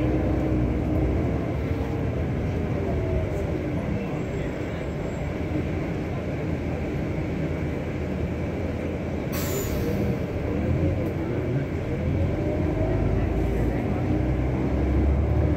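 Engine and road noise of a moving vehicle heard from inside its cabin, the engine's pitch rising and falling as it drives round a roundabout, with a short hiss about nine seconds in.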